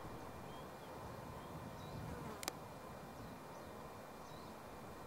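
Faint open-air ambience on the river: a steady low hiss with a few short, faint high chirps, and a single sharp click about two and a half seconds in.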